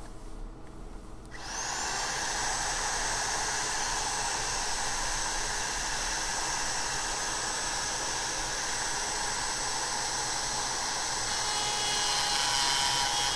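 Electric router with a trimming bit switched on about a second in: its whine rises quickly in pitch as the motor spins up, then it runs steadily at full speed. Near the end the sound gets a little louder.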